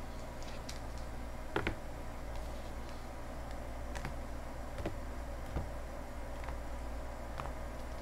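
Foil trading-card packs being handled and sorted on a table: scattered light clicks and taps a second or so apart over a steady low hum.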